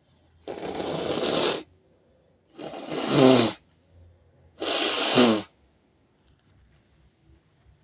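A person blowing their nose three times, each blow about a second long; the last two end in a low, falling pitched note.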